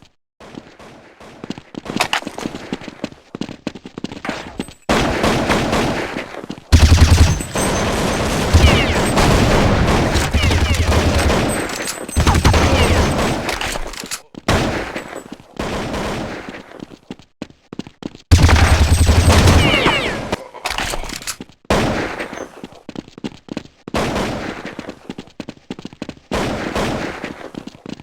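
A run of short clips cut together, each a sputtering fart made of a rapid string of pops; the longest and loudest last several seconds and are deep.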